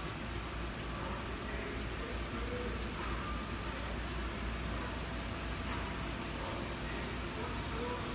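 Steady indoor background noise: an even hiss over a constant low hum, with no distinct events.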